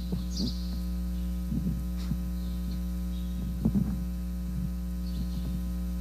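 Steady electrical mains hum picked up through a corded handheld microphone with a sound fault that the user suspects is in its cable, with a few faint knocks from the microphone being handled.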